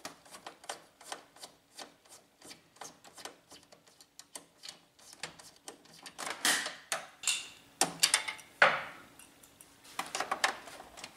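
Screwdriver backing out the screws that hold the fuser unit of a Brother laser printer: a run of small, quick clicks from the tool and screw, with a few louder scrapes and rubs past the middle.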